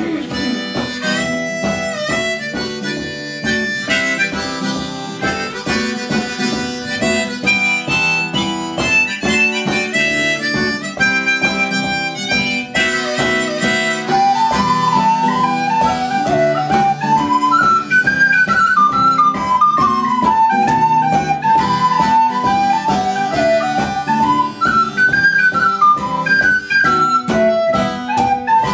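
Acoustic guitar strummed under a harmonica played from a neck holder, the harmonica sounding chords and riffs. About halfway through, a single high, smooth melody on a small wind instrument takes the lead over the guitar.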